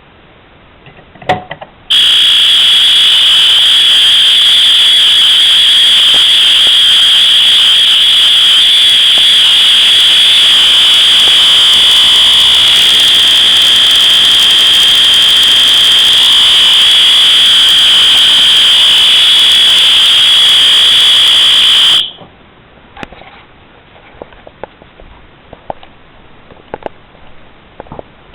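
System Sensor SpectrAlert P2R fire alarm horn sounding a loud, steady high-pitched tone for about twenty seconds, then cutting off abruptly. A short knock comes just before the horn starts.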